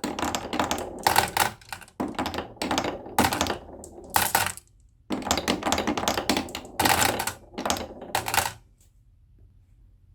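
Marbles rolling and clattering down a wooden marble run in dense runs of rapid clicks. There is a short break about four and a half seconds in, and the clatter stops about eight and a half seconds in.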